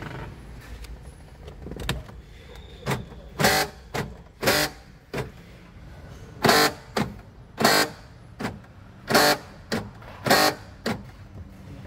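2018 Mitsubishi Xpander front left door lock actuator buzzing in about a dozen short bursts, some louder than others, as the central lock switch is worked back and forth. It is the noisy lock actuation the owner is checking for.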